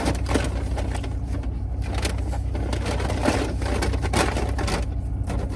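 Steady low hum of a car engine idling, with scattered small clicks and rustles over it.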